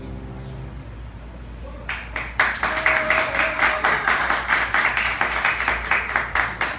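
The last held chord of the accompaniment dies away. About two seconds in, a small audience starts applauding, with quick, distinct claps that keep going.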